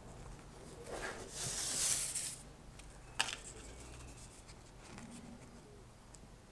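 Vacuum-cleaner-bag material rustling as a homemade mask is handled, a crinkly rustle lasting about a second and a half, followed by a single light click.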